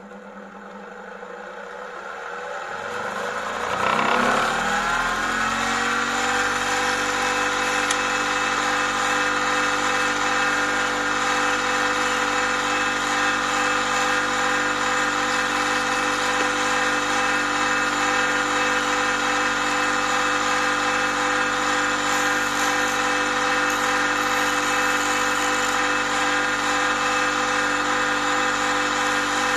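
Electric sharpening machine's motor spinning up over a few seconds, its whine rising in pitch, then running at a steady speed.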